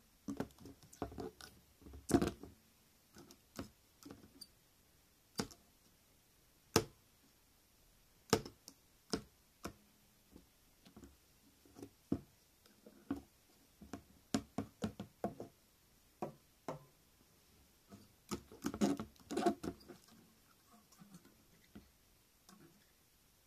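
Handmade toy beetle figures with wire legs knocking, tapping and scraping against each other and on an upturned plastic lid as they are pushed together by hand. The clicks and knocks are irregular and separate, with a busier flurry about three-quarters of the way through.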